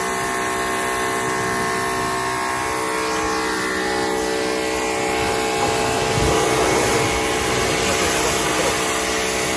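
Greenworks Pro 2300 electric pressure washer running: a steady motor-and-pump hum under the hiss of the water spray.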